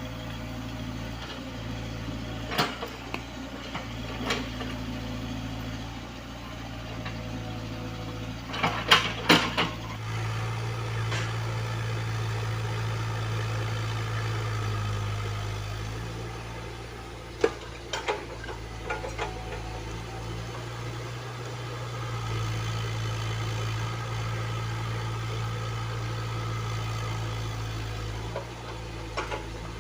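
Komatsu PC75UU mini excavator's diesel engine running steadily, growing louder for several seconds twice. Sharp metallic clanks cut in now and then, several together about nine seconds in.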